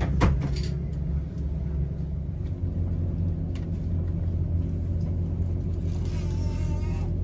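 Steady low rumble of a passenger train running on the track, heard from inside the carriage. There is a sharp knock about a quarter second in and a brief higher-pitched squeal near the end.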